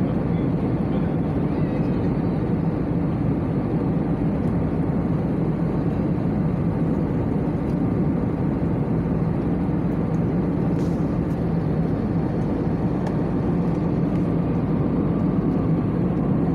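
Steady cabin noise of a jet airliner in flight: an even roar of engines and rushing air with a low drone underneath.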